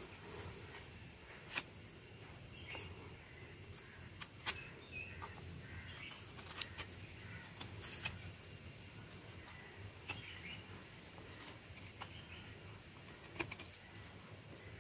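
Quiet, occasional sharp clicks and scrapes of a steel spoon scooping tender coconut flesh out of the shell and into a bowl, with faint bird chirps in the background.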